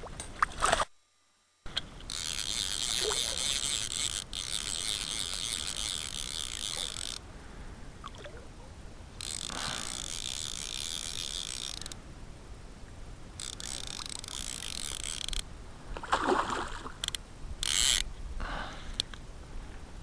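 Fly reel's click-and-pawl drag buzzing in long spells as line is pulled off and reeled in, stopping and starting several times.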